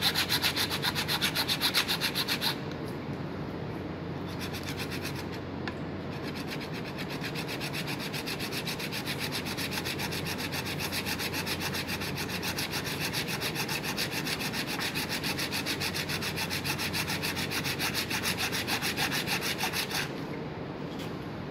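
Iron blade scraped rapidly back and forth over the bare skull vault, rasping on bone as it scores the outline for opening the skull cap. The strokes are loudest in the first couple of seconds, run on more softly, and die away near the end.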